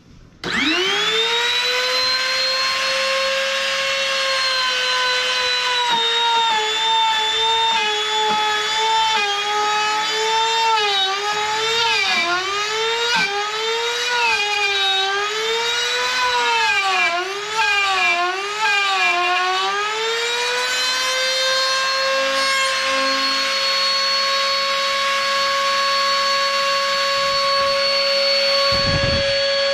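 Electric router with a half-inch straight bit spinning up and running with a high steady whine; in the middle its pitch dips again and again as the bit is pushed into the wood to cut out a hole, then it runs free and steady near the end.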